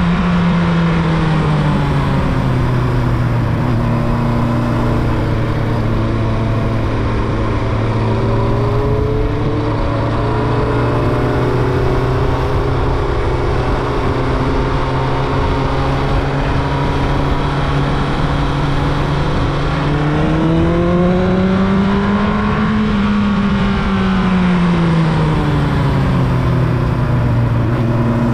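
Carburetted year-2000 Yamaha YZF-R1's inline-four engine running at steady revs. The revs ease off at the start, rise and fall smoothly once a little past the middle, and begin rising again at the very end.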